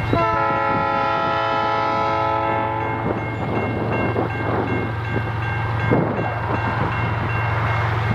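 Horn of an approaching CN ES44AC freight locomotive sounding one long blast for about three seconds, over a level-crossing warning bell that rings steadily with evenly repeated dings. A low steady hum runs underneath.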